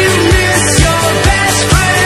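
Background rock music with a steady drum beat, about two kicks a second.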